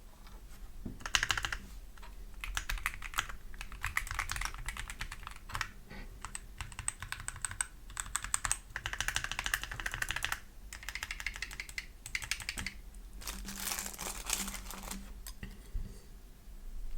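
Typing on a Lemokey L1 75% mechanical keyboard: quick runs of keystrokes in several bursts, with short pauses between them.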